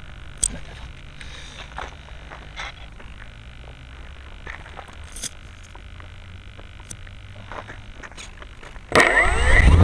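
Scattered light clicks and ticks over a low steady hiss. About a second before the end, the AcroMaster RC plane's electric motor and propeller spin up suddenly, much louder, with a whine that rises in pitch.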